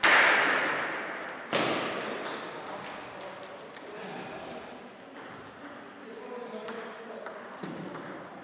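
Table tennis ball pinging in short high clicks as it is bounced between points. Near the start, two loud, sudden bursts of noise each fade away over about a second.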